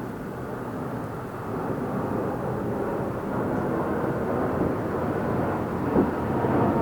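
Many fireworks going off together, their booms blending into a steady rumble that slowly grows louder, with one sharper bang about six seconds in.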